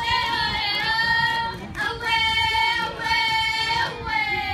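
A high voice singing long held notes in three phrases, each sliding into pitch, with short breaks about two seconds and four seconds in.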